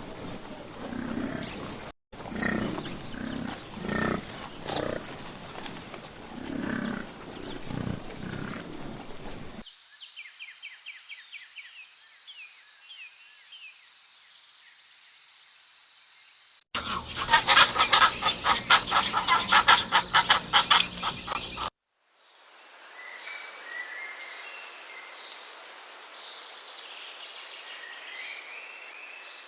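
A run of different animal calls, each cut off abruptly. First come low, repeated calls for about ten seconds. Then faint high chirping, then a loud, fast pulsing call with a rattle, and near the end high bird-like chirps.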